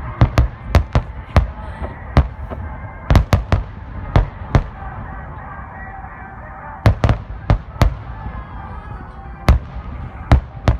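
Aerial fireworks bursting in a rapid, irregular string of loud bangs, with a lull of about two seconds midway before the bangs resume.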